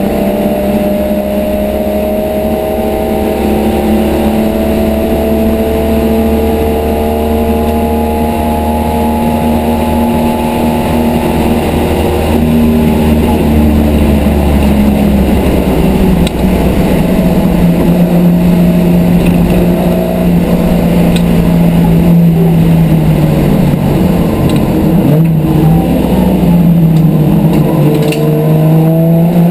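Race car's engine heard from inside the cabin at racing speed, its pitch climbing slowly for the first ten seconds or so, then holding and dropping away about three-quarters of the way through before climbing again near the end, over steady road noise.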